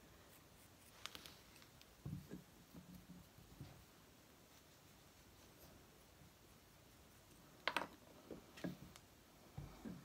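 Near silence with faint scratching and a few small clicks and soft knocks from a modelling tool working a leather-soft clay piece on a workbench.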